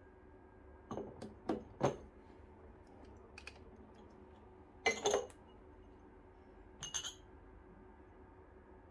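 Short clinks and knocks of a metal portafilter and small glass cups being handled at an espresso machine: a few quick clicks about a second in, a louder double knock around five seconds, and another clink near seven seconds.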